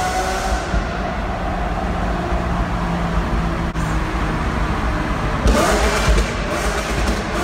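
Lamborghini Aventador's V12 engine running while the car drives through a road tunnel, heard from inside the cabin. It gets louder and harsher about five and a half seconds in.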